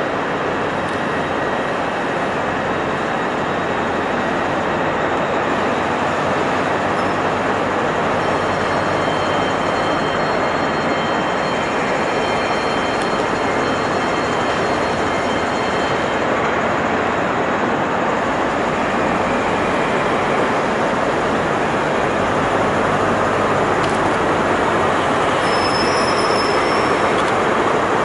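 Class 43 HST power car's diesel engine running as the train draws slowly into the platform, a steady loud drone. Faint high-pitched squeals come in partway through.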